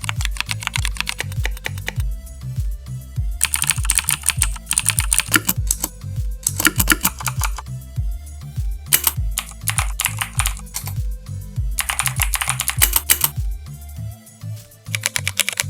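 Simulated mechanical-keyboard switch clicks from the Mechvibes app, played as keys are typed in several quick bursts of a second or two with short pauses between. Background music with a steady bass beat runs underneath.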